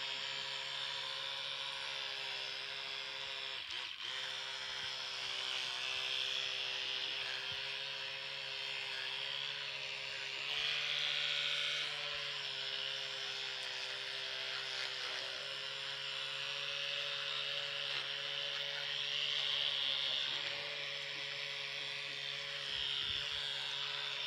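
Electric toothbrush buzzing steadily as it brushes a dog's teeth. The hum turns briefly louder and a little higher about ten seconds in, and swells again a few times after that.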